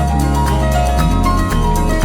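Background music: an instrumental track of held melodic notes over a steady bass line with a regular beat.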